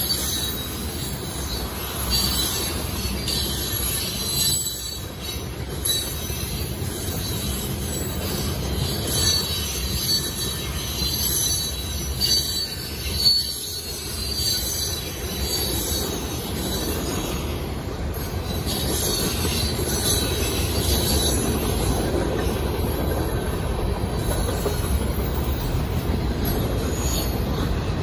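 Manifest freight train rolling past at speed: its diesel locomotives and then its freight cars give a continuous heavy rumble, with high wheel squeal over it. It grows a little louder about two-thirds of the way through.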